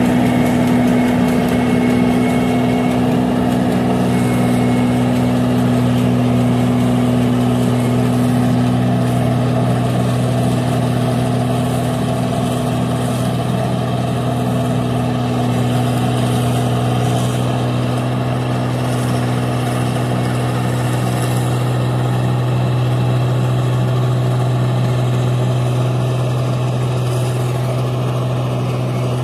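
Combine harvester's diesel engine running steadily under load while it cuts rice, a constant low hum that grows a little quieter as the machine moves away.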